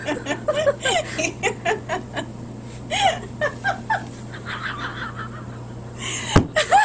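A woman laughing hard in short, repeated fits, over a steady low hum. There is a sharp thump about six seconds in.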